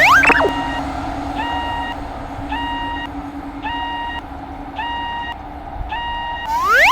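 Electronic warning beeps, about one a second, each a short pitched tone with a slight upward flick at its start, over a steady low hum, in the style of a synthesized level-crossing alarm. A loud rising sweep plays at the start and another near the end.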